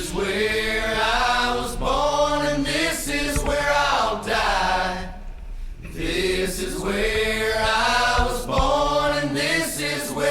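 Music: several voices singing together in a choir-like passage, with a brief quieter break about halfway through.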